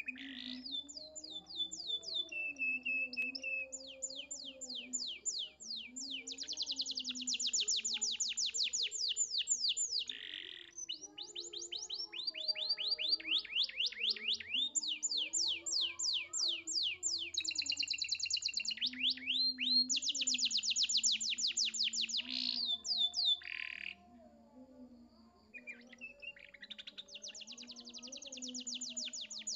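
Domestic canary singing a long, high-pitched song of fast rolling trills and rapidly repeated notes. It breaks off briefly late on, then starts trilling again.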